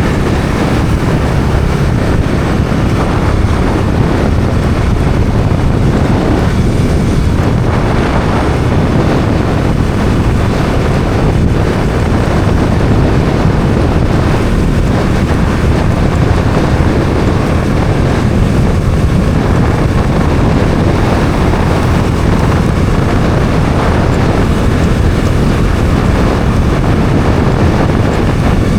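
Bajaj Dominar 400 motorcycle riding at a steady cruising speed: heavy wind rush over the microphone with the single-cylinder engine running steadily beneath it.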